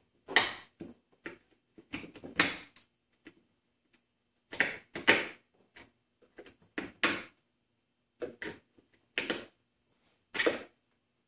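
About a dozen short knocks and scrapes of a screwdriver and a wooden piano cabinet part being handled on a workbench, coming at uneven intervals.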